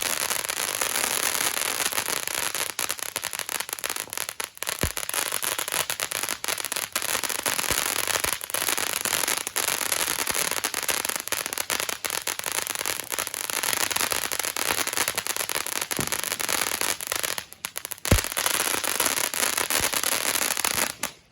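"Freaky Tiki" consumer firework going off with a dense, steady crackle of pops and a few louder single bangs, the loudest about 18 seconds in, then cutting off suddenly as it finishes.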